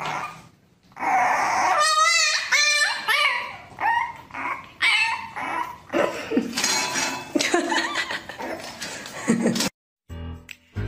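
A puppy whining and yipping over and over in short high cries that waver up and down in pitch. The cries cut off abruptly near the end, and music begins.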